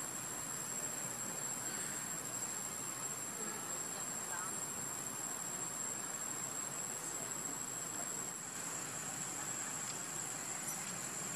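Insects keeping up one steady high-pitched drone over a faint background hiss.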